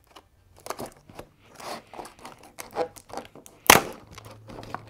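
Packaging of a monkey noodle stretchy fidget toy crinkling and tearing as it is opened, in scattered short crackles, with one louder sharp crackle a little before the end.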